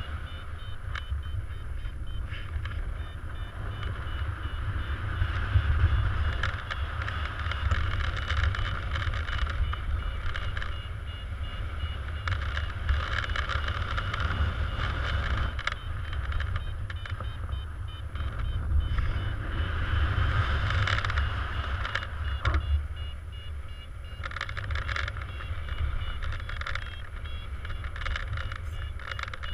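Wind rushing and buffeting over the microphone in paraglider flight, swelling and easing in gusts. Short high beeps from the flight instrument's variometer repeat faintly at times, near the start and near the end.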